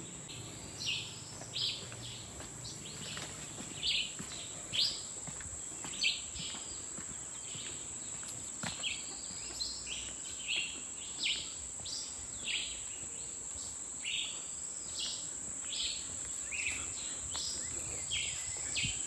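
Steady high-pitched insect drone, with many short bird chirps repeating about once or twice a second.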